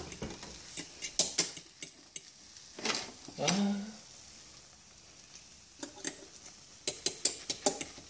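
Metal cutlery clicking and scraping against a hot flip-style waffle maker's plate while a cooked waffle is prised out, with a faint steady sizzle. There are scattered clicks, with a quick run of them near the end.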